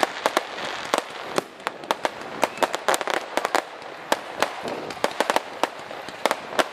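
Aerial fireworks going off in quick succession: many sharp bangs and pops, several a second and irregularly spaced, over a continuous hiss.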